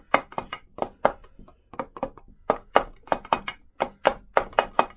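Hammer tapping a drift against a Lambretta magneto (mag) flange in a quick, uneven run of light knocks, about four or five a second. The taps are seating the flange down level in the crankcase around the crankshaft.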